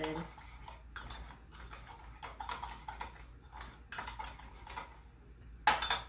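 A spoon stirring egg yolk into a butter-and-sugar mixture in a mug, clinking and scraping against the sides in quick, irregular strokes.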